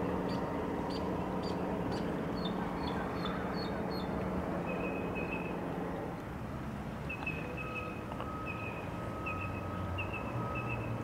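A boat engine runs with a steady low hum that shifts lower about halfway through. Over it a bird chirps in short notes repeated about twice a second.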